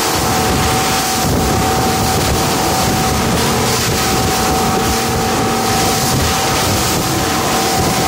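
Motorboat under way: the engine runs steadily with a constant hum, under heavy wind noise on the microphone and water rushing and splashing past the hull.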